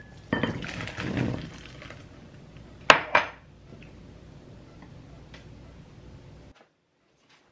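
Ramyeon noodles and soup poured from a pot into a ceramic bowl, a splashing pour lasting about a second and a half. About three seconds in come two sharp clinks of dishes, then a few faint taps before the sound cuts out near the end.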